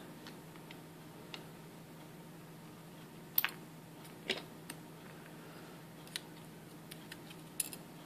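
Light, scattered metallic clicks of steel tweezers and small lock pins as an old Yale rim cylinder is taken apart and its pins set down in a pin tray: about ten sharp ticks at uneven intervals, the loudest about three and a half seconds in.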